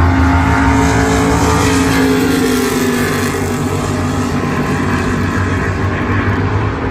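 Two muscle cars' engines at full throttle down a drag strip quarter-mile. The engine note sinks a little in pitch and slowly fades as the cars pull away toward the finish line.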